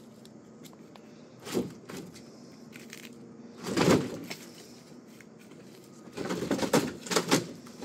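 Old wooden shed wall being pulled over, its boards creaking and cracking in separate bursts: a short one about a second and a half in, the loudest around four seconds, and a cluster of several near the end.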